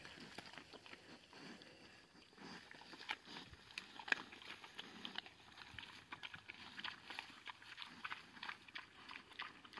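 Pigs chewing acorns while rooting in grass: faint, irregular crunching and clicking of munching.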